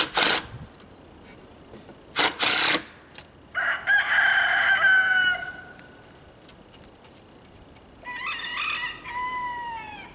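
A rooster crows twice, one long crow about three and a half seconds in and a second one near the end, each trailing off downward in pitch. Before the first crow a cordless drill gives two short bursts driving screws into pallet wood.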